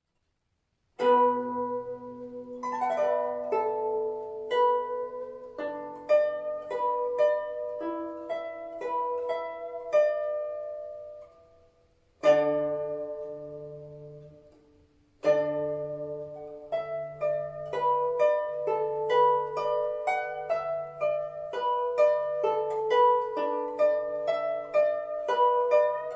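Guzheng, the Chinese plucked zither, playing a melody of plucked, ringing notes that starts about a second in. About halfway through the playing stops briefly, then a single strong note is struck and left to die away before the melody resumes.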